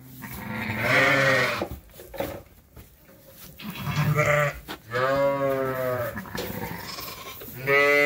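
Sheep bleating in a lambing barn: several long, pitched bleats, one about a second in, a longer one around the middle, and another starting near the end.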